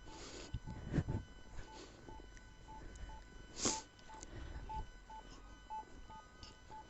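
Repeating short electronic beeps at one steady pitch, about three a second, with a few brief rustling noise bursts.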